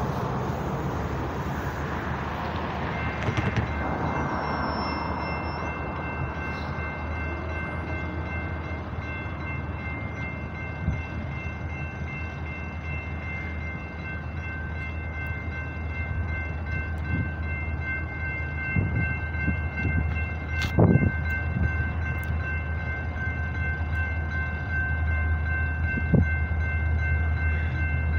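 Approaching EMD SD40-2 diesel locomotive sounding its air horn, a steady chord of several notes from about three seconds in, over a low diesel rumble that grows louder near the end as the train draws closer.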